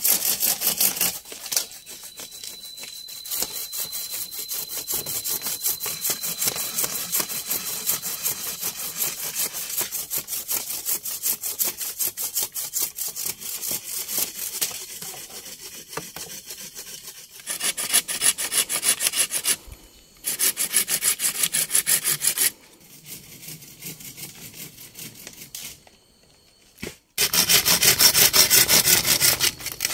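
A saw cutting through wood with rapid back-and-forth strokes, in several spells with short pauses. The loudest spells come in the second half.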